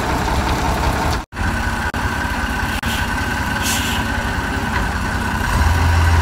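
Heavy truck's diesel engine idling with a steady low rumble. The sound cuts out completely for a moment about a second in.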